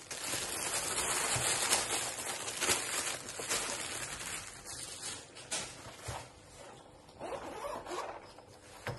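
Thin plastic packaging bag crinkling and rustling as a soft zippered tool case is slid out of it, loudest in the first half and then fading to quieter handling, with the case's zipper being pulled open near the end.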